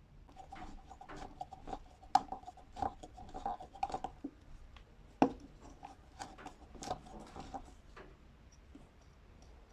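Hand tools and parts being handled and worked: irregular clicks, rubs and knocks, two sharp clicks about two and five seconds in, over a faint steady ringing tone that fades out near the end.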